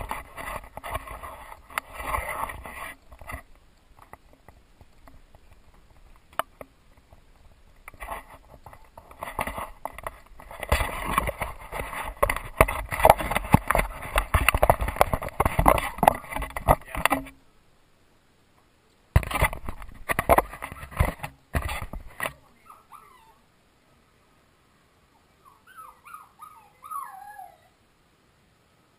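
Rubbing and knocking on the GoPro camera as it is handled and set in place, loudest in the middle. Near the end, Samoyed puppies whimpering in short, wavering, falling cries.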